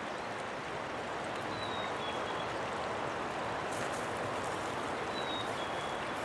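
Steady rushing of a shallow rocky creek, even and unbroken. Two brief thin high whistles sound over it, one early and one near the end.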